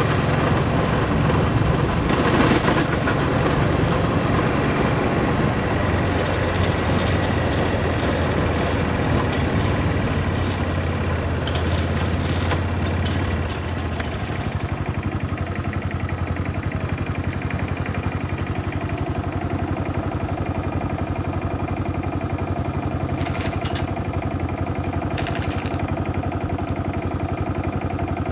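Yamaha SRX400's single-cylinder engine running at idle, its sound dropping a little and changing about halfway through, with two short clicks or rattles near the end. The owner suspects a blown transmission and a slipping clutch, with abnormal noise at half-clutch.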